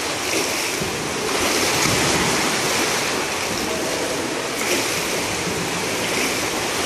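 Steady rushing, splashing water noise in a swimming pool, an even hiss with no distinct strokes.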